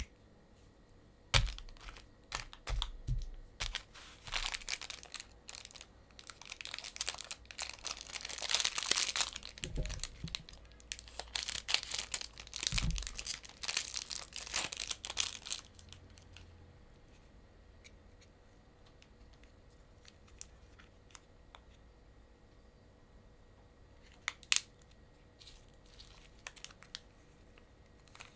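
Plastic candy wrappers crinkling and tearing as they are handled and pulled open, in dense bursts through the first half, then only a few separate sharp clicks later on, one louder one about three quarters of the way in.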